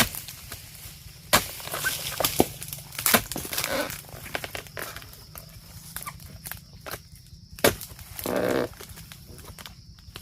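Oil palm harvesting: several sharp knocks among the rustle and crackle of dry palm fronds, with a short rasping burst near the end.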